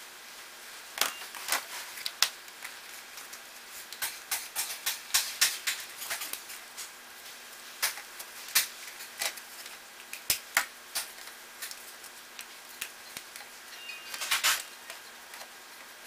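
Irregular clicks and light knocks of a Remington hair dryer's plastic parts being handled and fitted together during reassembly, with a short dense clatter near the end.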